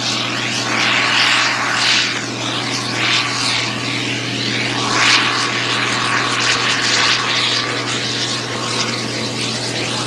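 A farm machinery engine running at a steady speed, with a rushing hiss that swells and fades about once a second.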